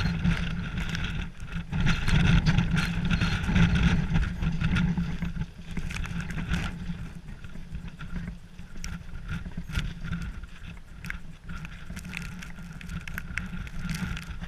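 Gale-force wind buffeting the microphone in gusts, a deep rumble with crackling hiss, strongest a couple of seconds in and then easing a little.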